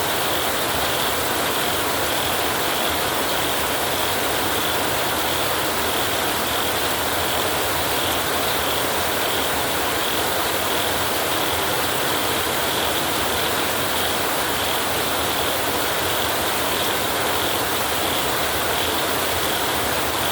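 Heavy rain drumming on a tin roof: a steady, dense patter with no thunder.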